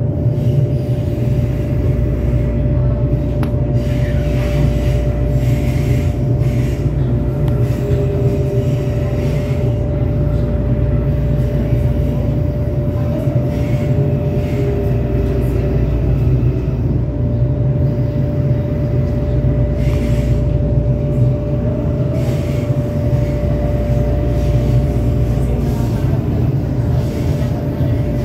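Commuter train heard from inside the car while running along the line: a steady low rumble with a constant whine held on one pitch, and a couple of brief higher wheel tones about eight and fourteen seconds in.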